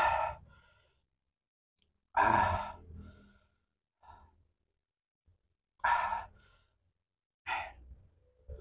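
A man's loud open-mouthed 'haah' exhalations, four times a couple of seconds apart, panting from the burn of raw chili sambal.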